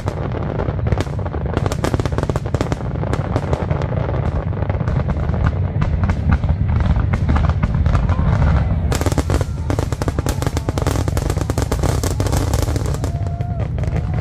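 Aerial fireworks display: a rapid, continuous barrage of bangs and crackles over a steady low rumble, with an especially dense run of crackling from about nine to thirteen seconds in.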